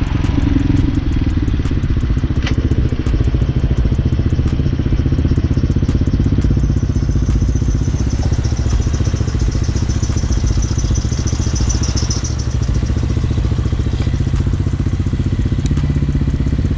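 Hawk 250cc motorcycle's single-cylinder engine running steadily, heard through a lapel mic clipped inside the rider's helmet.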